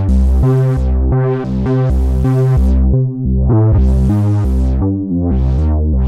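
Arturia MicroFreak synthesizer playing a noise bass patch: a line of low bass notes that change pitch every half second or so, with a hiss laid over them that swells and fades about four times.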